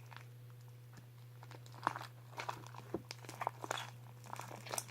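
Homemade slime being squished and kneaded by hand, giving irregular sticky clicks and crackles that start about a second and a half in.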